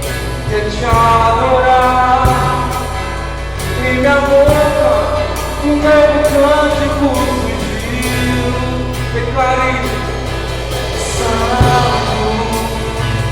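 Live worship band music: a singing voice over acoustic guitar and a drum kit, with occasional drum and cymbal hits.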